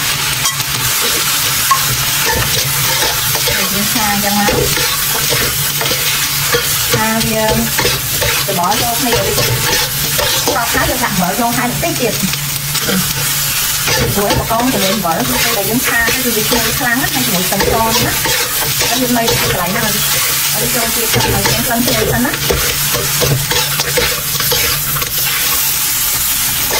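Prawns frying in hot oil in a metal wok, sizzling steadily, while a spatula stirs them and repeatedly scrapes and clicks against the pan.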